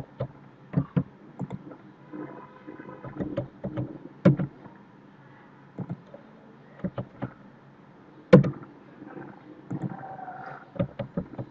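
Irregular clicks and knocks from a computer mouse and desk while pattern points are edited, with one louder knock about eight seconds in.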